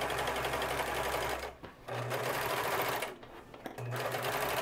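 Singer ProFinish serger (overlocker) stitching a side seam in knit fabric, running at a steady speed in three spells with two short stops about a second and a half and three seconds in.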